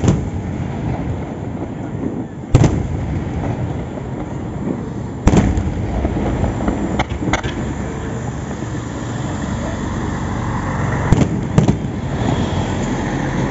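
Aerial fireworks shells bursting: about seven sharp, loud bangs at uneven intervals, two of them coming in quick pairs, over a continuous low rumble.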